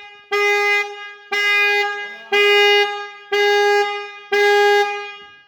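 Chevy Trax car horn sounding in short, evenly spaced blasts, about one a second, each a steady tone that cuts off cleanly.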